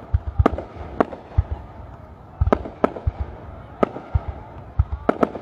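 Distant aerial fireworks going off: about seven sharp cracks at irregular intervals, with lower booms in between.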